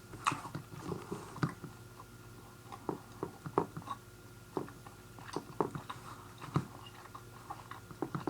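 A person chewing a mouthful of soft gummy fruit snacks close to the microphone: scattered wet mouth clicks and smacks at an irregular pace.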